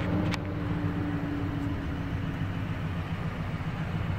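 A Nissan Titan's 5.6-litre V8 idling steadily, heard from inside the cab, with two light clicks right at the start.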